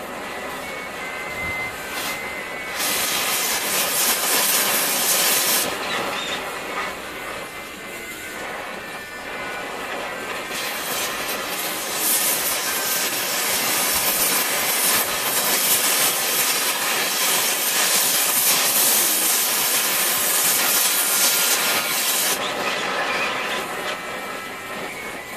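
MagneGas2 cutting torch flame hissing steadily as it burns a piece of tungsten. The hiss turns louder and harsher for a couple of seconds a few seconds in, and again from about ten seconds in until near the end, while the flame flares bigger.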